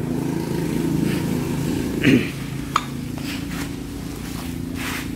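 A steady low machine hum, with a few sharp light clicks and knocks, the loudest of them a short one about two seconds in.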